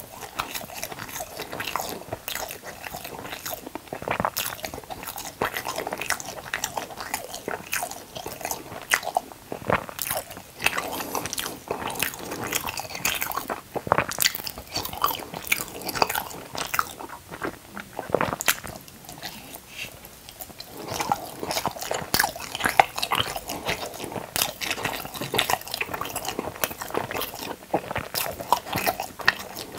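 Close-miked eating sounds: a person biting and chewing crunchy food, with dense crackling crunches that ease off briefly about two-thirds of the way through.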